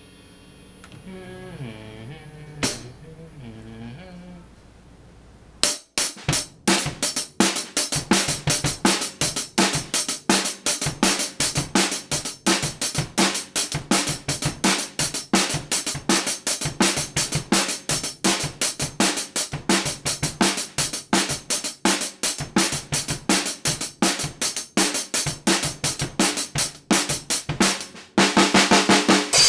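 Acoustic drum kit played with sticks. After a quiet start with a single click, a fast, steady beat on snare, bass drum, hi-hat and cymbals kicks in about six seconds in, ending in loud crashing cymbals near the end.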